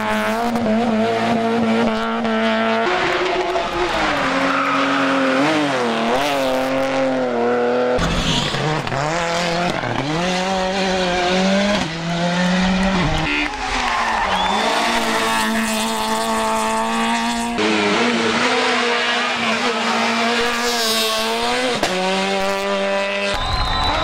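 Several rally cars in turn, among them a Peugeot 106 and, near the end, a BMW E30, racing through hairpins on a hillclimb. The engines rev up and down through gear changes and lifts off the throttle, with some tyre squeal, and the sound jumps from one car to the next every few seconds.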